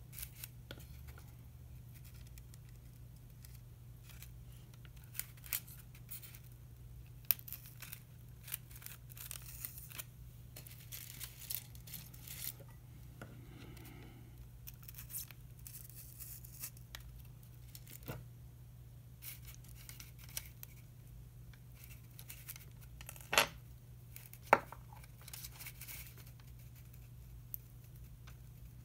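Paper strips rustling and scraping against a foam spreading board while a butterfly's wings are set with pins and forceps, with small clicks of pins and metal forceps. Two sharper clicks come a little over a second apart, late on, over a low steady hum.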